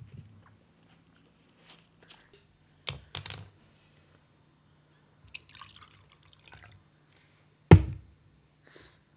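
Milky liquid poured from a bottle into a drinking glass, with a few light knocks of the bottle and glass. A loud knock near the end as the bottle is set down on the table, over a faint steady low hum.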